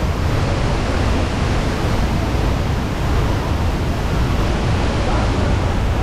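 Waterfall and fast stream water rushing: a loud, steady noise of falling and running water with no breaks.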